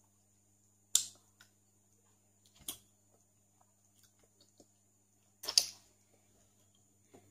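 Eating and handling durian: three sharp smacks and clicks stand out, about one, two and a half and five and a half seconds in, the last the loudest. Softer ticks come between them, over a faint steady hum.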